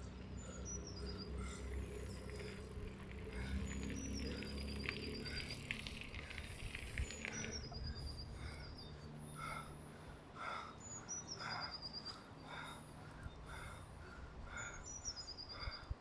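A songbird repeating one short, high song phrase that drops in steps, five times about every three to four seconds, with softer chirping and a low steady outdoor rumble underneath.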